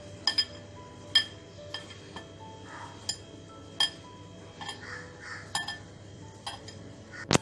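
Glass mixing bowl giving about a dozen sharp, irregular clinks with a short ring as the hand kneading stiff flour-and-ghee dough knocks against it. Soft squishing of the crumbly dough comes in between.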